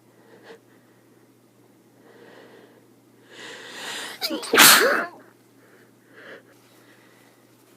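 A person sneezing once: a drawn-in breath builds for about a second, then one loud sneeze about halfway through, followed by a short breath.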